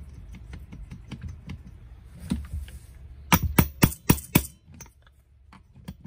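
A hammer strikes a partly dismantled Stihl MS250 chainsaw engine five times in quick succession, about four sharp blows a second, to knock a part loose, with one more blow shortly after. Before the blows come light clicks of parts being handled.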